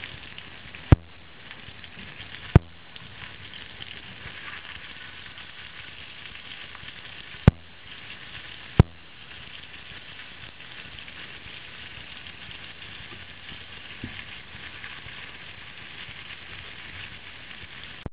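Rava-coated mackerel steaks sizzling steadily as they shallow-fry in hot oil in a non-stick pan. Four sharp knocks stand out, twice in the first three seconds and twice more a few seconds later, as the wooden spatula strikes the pan while the pieces are turned.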